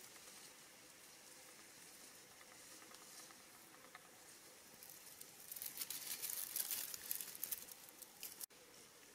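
Dry tomato leaves and stems rustling and crackling as a hand grabs a ripe tomato on the plant, a dense crackle of about three seconds starting a little past halfway. Before it there is only a faint steady hiss.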